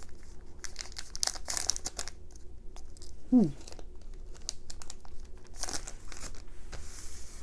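Foil wrapper of a Pokémon booster pack crinkling and tearing as it is opened by hand, in irregular crackles with a denser rustle near the end. A brief falling vocal sound comes about three seconds in.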